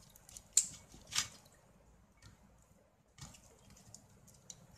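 Plastic and metal handling clicks and light scraping as a CRT's deflection yoke assembly is worked off the picture tube's glass neck. There are a few sharp clicks, about half a second in, just after a second and about three seconds in.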